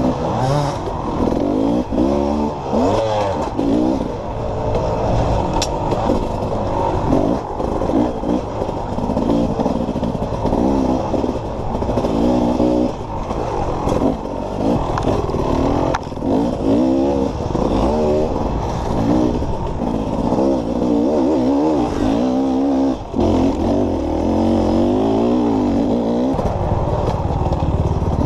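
Dirt bike engine heard from on board, revving up and dropping back again and again as the throttle is worked and gears change, with the clatter of the bike over rough ground.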